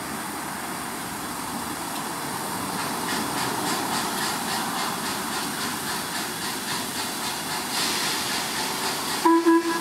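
LMS Princess Coronation Pacific 6233 Duchess of Sutherland pulling slowly away with its cylinder drain cocks open: a steady hiss of steam, with chuffs at a few a second setting in about three seconds in. Near the end a deep steam whistle sounds twice briefly.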